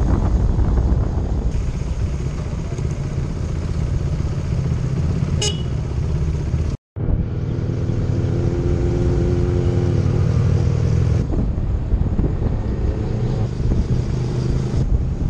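Motorcycle riding along a road, its engine running under wind rush on the microphone. A vehicle horn sounds steadily for about two seconds just past the middle, shortly after the sound cuts out for a split second.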